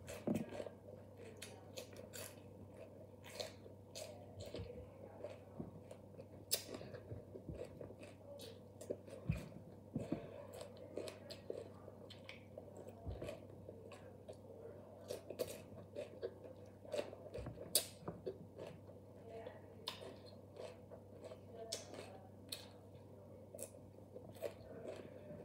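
A person chewing raw green bell pepper pieces, with irregular crisp crunches and small clicks throughout. A faint steady hum lies beneath.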